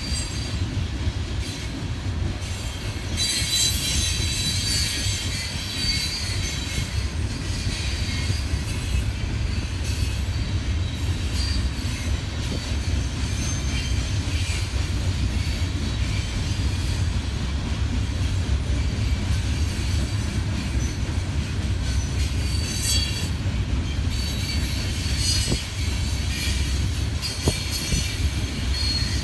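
CSX coal hopper train rolling past with a steady low rumble. High-pitched metallic squealing comes and goes over it, strongest about three to seven seconds in and again near the end.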